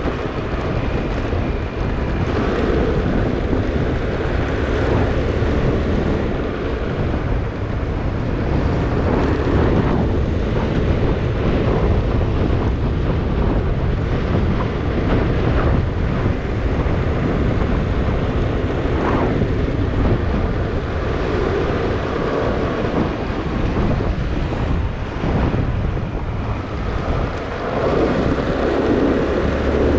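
Wind buffeting the microphone over a motorbike's engine and road noise while riding, steady throughout with small swells.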